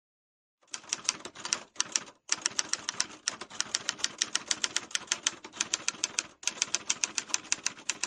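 Manual typewriter keys clacking in a fast run, about ten strikes a second with a few brief pauses, starting under a second in.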